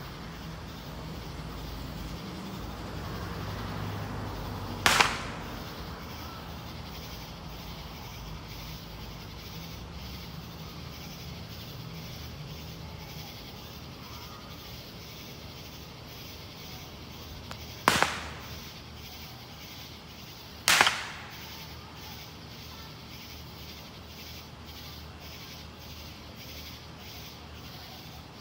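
Three sharp firework bangs, each with a short echoing tail. The first comes about five seconds in, and the other two come later, about three seconds apart. Under them is a steady background with a low hum that dies away partway through.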